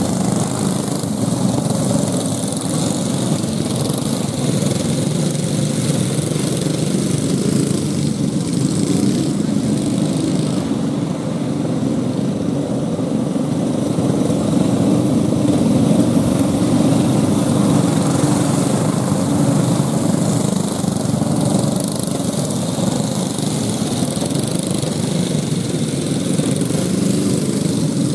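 Several 5 hp Briggs & Stratton single-cylinder go-kart engines running together as the karts lap the dirt oval, a steady drone that swells a little as the pack comes round.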